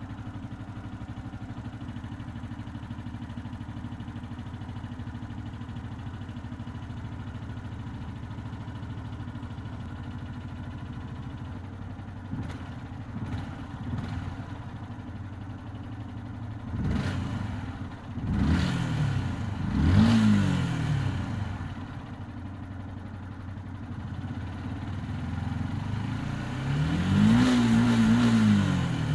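Yamaha YZF-R125's single-cylinder four-stroke engine idling steadily, then blipped briefly a few times. Three quick revs follow, each rising and falling in pitch, and a longer, higher rev comes near the end.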